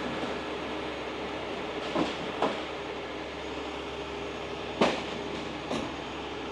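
Heavy tow truck diesel engine running steadily to power the crane hydraulics as a righted box truck is lowered onto its wheels, with a few short metallic knocks from the rigging and the settling truck. The loudest knock comes about two thirds of the way through.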